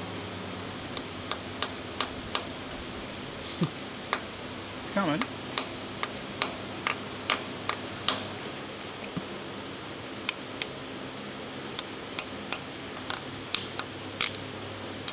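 Hand tools tapping and clinking on the steel parts of a WWII StuG III transmission as it is dismantled: irregular sharp metallic strikes, a couple a second, some with a short ring.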